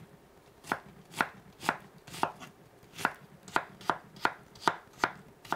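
Chef's knife dicing an onion on a wooden cutting board: a series of sharp knife strikes on the board, about two a second, beginning a little under a second in and quickening slightly toward the end.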